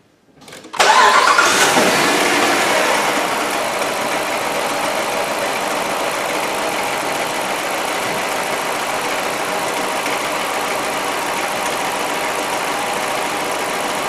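Jeep Commander's 5.7 Hemi V8 starting about a second in, flaring up briefly and then settling into a steady idle. It runs with cylinder 7 dead and not contributing: a dead misfire.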